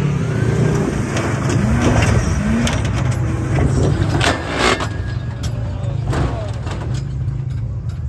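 Off-road rig's engine running hard under load as it climbs a steep dirt hill with its wheels spinning, with sharp cracks and spraying dirt around the middle.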